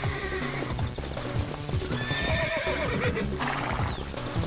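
A herd of brumbies (Australian wild horses) galloping, with rapid hoofbeats on the ground and a horse whinnying about halfway through, over background music.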